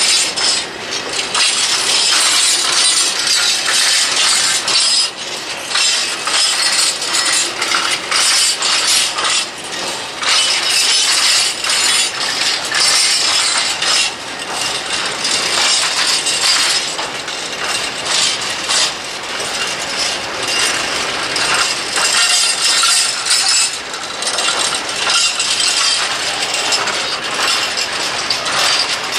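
Freight train's open coal wagons rolling past close by, a continuous dense metallic clatter and clicking from the wheels and running gear on the rails.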